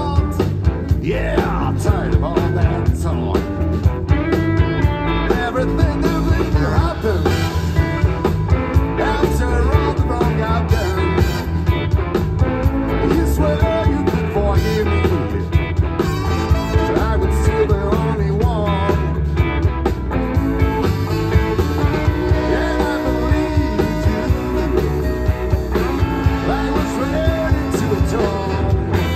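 Live blues band playing: electric guitars, bass, drums and a horn section, at a steady, driving level.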